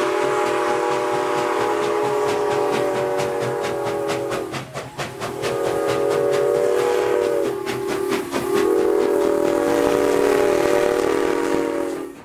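Whistle of the 0-6-0 steam locomotive #7470 blown in long blasts, a chord of several steady notes, with short breaks about 4.5 and 8 seconds in. A run of regular beats sounds under the middle blasts.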